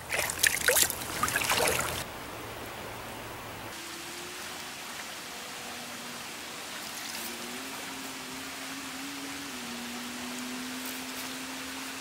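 Water splashing for about two seconds as a small rainbow trout is released back into the stream, then the steady rush of a fast freestone trout stream with a faint low hum that shifts slightly in pitch.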